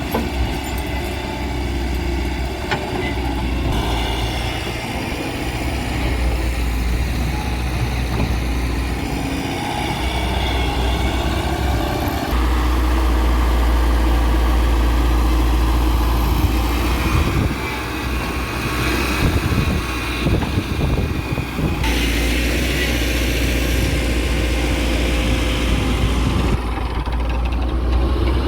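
Diesel engine of a JCB backhoe loader running as it digs and loads, a steady heavy drone whose sound shifts abruptly several times.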